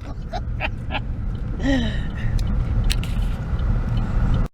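Steady low rumble of a car driving, heard from inside the cabin, with a few light clicks and a brief vocal sound about two seconds in.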